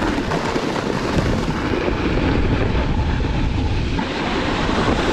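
Steady loud rushing noise, wind on the microphone at speed.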